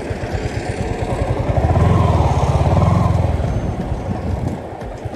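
Yamaha R15 sport bike's single-cylinder engine running while riding, with wind rush. The engine gets louder about two seconds in and eases back near the end.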